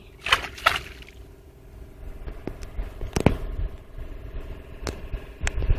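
Handling noise in a small boat: two short rustles near the start, then a few sharp knocks, the loudest about three seconds in, over a low rumble.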